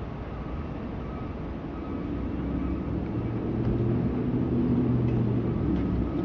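City traffic with a motor vehicle's engine hum that grows louder from about two seconds in, over steady low traffic noise.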